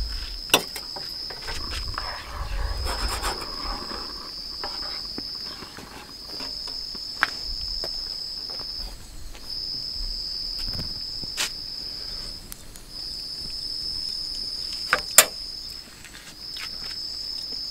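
Night insects calling in long trills at one high pitch, each about three seconds long with short breaks between. Over them come a few sharp knocks and clinks from cookware at a camp stove, the loudest near the end.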